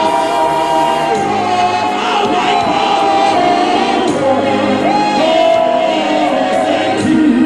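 A church congregation and choir singing a gospel song together in long held notes over a sustained low accompaniment.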